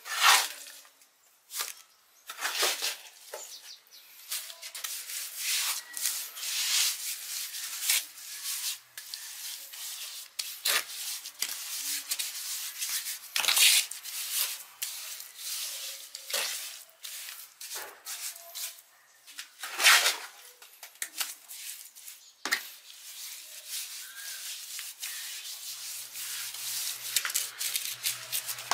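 Irregular hand-worked scraping and rubbing strokes on a hard surface, one after another at uneven intervals, with a few louder strokes standing out.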